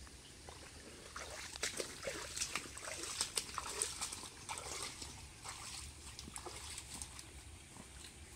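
Footsteps wading through a shallow muddy stream: irregular splashes and sloshes, with leafy plants brushed aside. The splashing is busiest in the first half.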